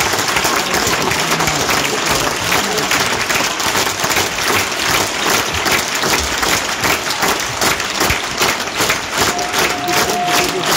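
A theatre audience applauding a band at the close of a concert: a dense, steady ovation of many hands that settles into more even, rhythmic clapping in the second half.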